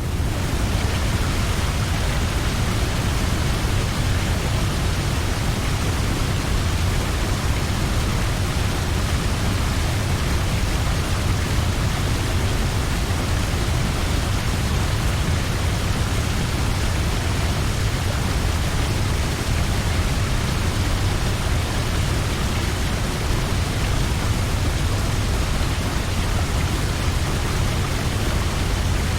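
Large waterfall: a steady, dense rush of falling water with a deep rumble underneath, unchanging throughout.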